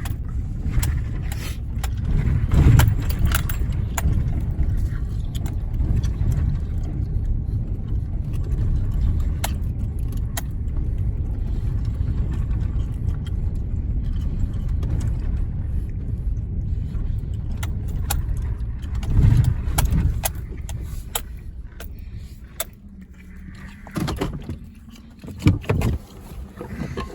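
Pickup truck on the move, a steady low rumble of engine and tyres with rattles and clicks, that dies down about 21 seconds in; a few sharp clunks follow near the end.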